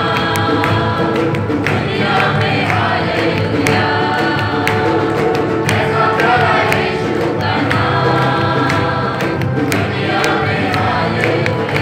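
Church choir of young women and men singing a worship song together, with hand claps scattered through it.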